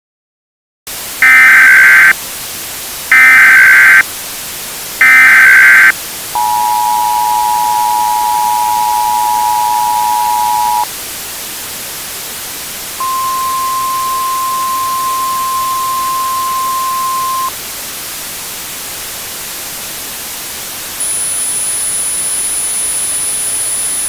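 Emergency Alert System tones over steady static hiss: three loud bursts of SAME header data, then the two-tone attention signal for about four and a half seconds, then a single steady tone for about four seconds. A faint high-pitched whine comes in near the end.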